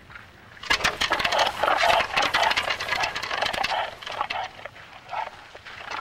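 Antlers of two sparring reindeer stags clattering and knocking together in the autumn rut: a dense run of clicks and knocks starts just under a second in and thins out after about four seconds, with a few more knocks near the end.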